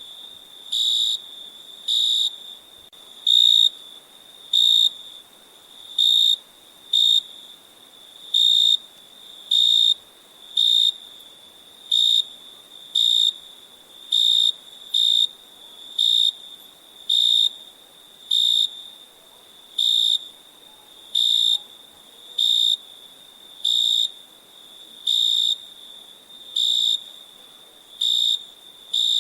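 Crickets chirping: a loud, high chirp about once a second, all at the same pitch, over a faint continuous trill.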